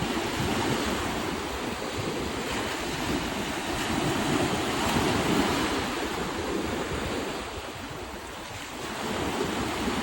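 Sea waves washing onto a sandy beach in a steady wash that swells and eases, with wind rumbling on the microphone.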